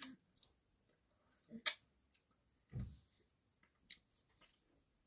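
Wet mouth smacks from licking and sucking fingers: a sharp smack about a second and a half in, a low thump just before three seconds, and a faint click near four seconds.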